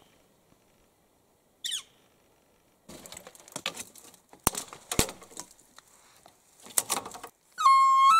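Two short, sharp, falling bird calls from a northern flicker, then rustling with a couple of sharp clicks. Near the end a hunter starts blowing an elk bugle call on a flexible bugle tube, a loud, steady low note.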